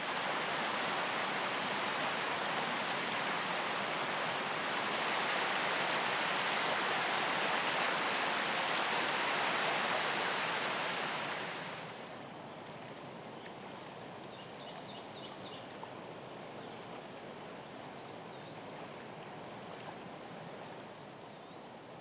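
The Nueces River running over shallow rocks, a steady rush of water. About twelve seconds in it drops to a quieter hush of calmer water, with a few faint high chirps.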